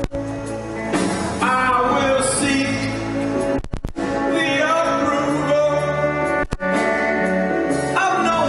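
Live acoustic folk music: acoustic guitars playing under a sung melody of long held notes that rise and fall in a few phrases.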